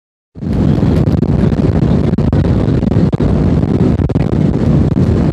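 Wind buffeting the microphone: a loud, uneven low rumble that starts abruptly a moment in.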